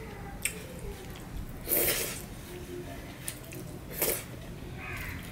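Eating by hand: wet chewing and mouth smacking, with a few short, louder smacks about two seconds apart.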